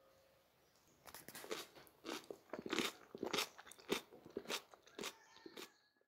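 Crisp, wet crunching and squelching of cucumber and onion salad dressed in curd, in irregular strokes about two a second.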